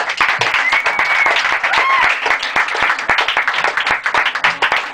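Audience applauding, with a couple of brief high calls over the clapping about one and two seconds in.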